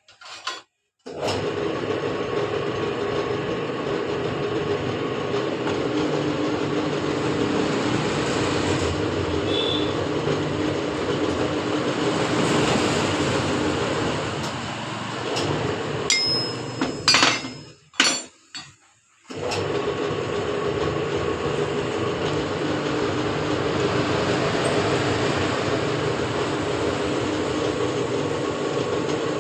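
Steady mechanical running noise with a constant hum, which cuts out briefly twice. A few sharp clicks and knocks come just before the second stop.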